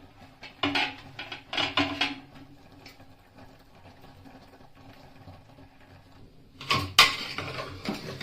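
Cookware and utensils being handled: two short scraping clatters, a quiet spell, then a loud knock about seven seconds in with more clatter around it.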